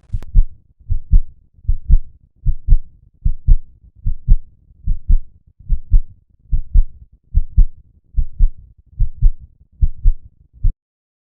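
Heart sounds in a regular lub-dub rhythm, each beat a close double thump, at about 78 beats a minute. They stop suddenly near the end.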